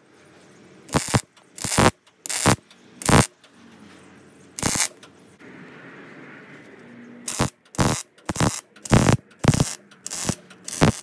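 MIG welder stitch-welding a steel bracket: a run of short arc bursts about two a second, a single burst, a pause with a lower steady hiss, then another run of seven bursts.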